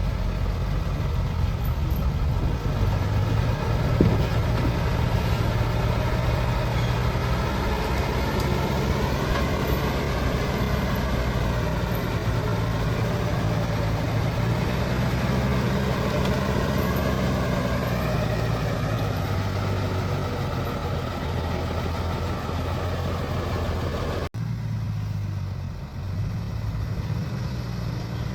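Heavy diesel engine running under varying load, its pitch rising and falling several times, with a sharp knock about four seconds in. About 24 seconds in the sound cuts abruptly to a quieter, steadier engine sound.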